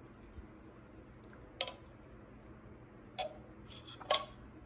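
A few short, sharp clicks over quiet room tone, the loudest a double click near the end.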